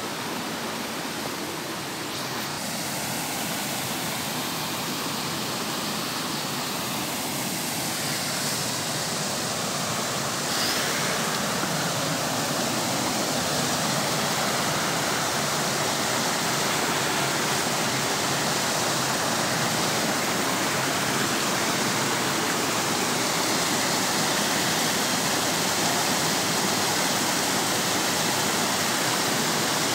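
Rushing water of a rocky mountain stream spilling over small waterfalls and cascades. It is a steady rush that grows a little louder about ten seconds in.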